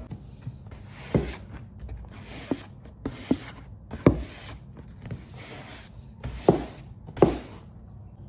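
Broom sweeping a wooden floor into a plastic dustpan: repeated swishing strokes of the bristles, with about six sharp knocks spread through.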